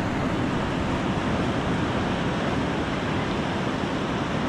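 Steady rush of ocean surf on the shore.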